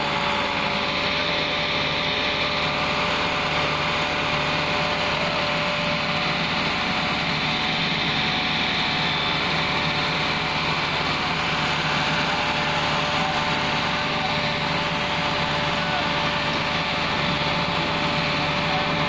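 Fiat 640 tractor's diesel engine held at high, steady revs as it strains to pull a heavily loaded sugarcane trolley through loose cane trash.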